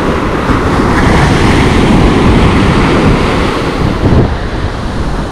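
Ocean surf: waves breaking and their foamy wash rushing up over wet sand, with wind buffeting the microphone. The wash swells in the first couple of seconds and eases off about four seconds in.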